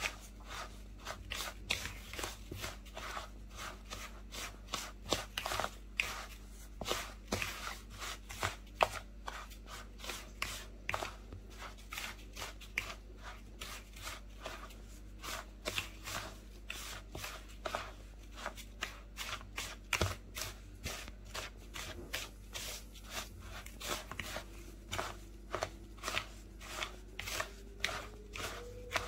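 Fingers rubbing fine semolina together with oil in a bowl: a long run of soft, gritty rustles and crunches, about two or three strokes a second.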